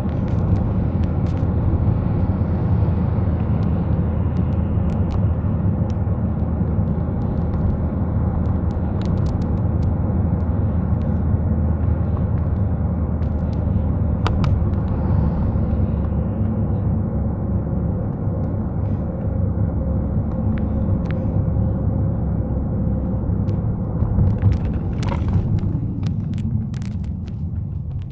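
A vehicle on the move: a steady low rumble of engine and road noise, with scattered light ticks that come more often near the end.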